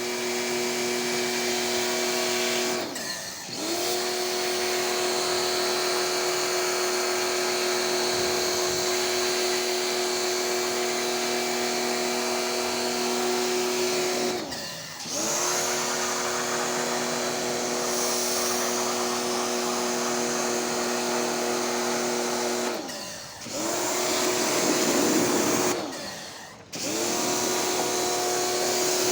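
Small electric motor of a cleaning machine running with a steady whine. It is switched off and back on about four times, its pitch falling each time it stops and rising as it spins back up.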